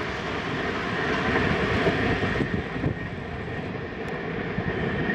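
Passenger express train running past: a steady rumble and rush of its coaches on the track, with the high hiss thinning out about halfway through.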